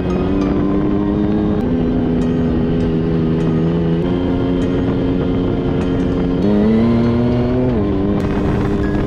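Turbocharged Yamaha YXZ1000R side-by-side's three-cylinder engine running steadily along a dirt trail, heard from inside the cab. Its pitch holds and then steps up or down a few times, with a sharp rise about six and a half seconds in and a drop about a second later.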